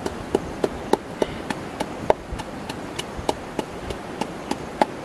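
Wooden pestle pounding in an earthenware mortar: steady, even knocks at about three strokes a second.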